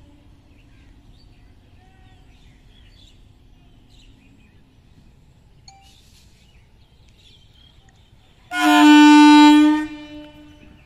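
Electric local train's air horn sounding one loud blast of about a second and a half on a single steady note, about two-thirds of the way in. Faint bird chirps and a low steady hum come before it.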